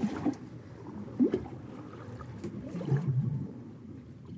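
Water slopping and bubbling in the bilges of a gaff-rigged sailing ketch, in irregular low gurgles. The louder sloshes come right at the start, about a second in and about three seconds in, over a faint steady wash of the sea.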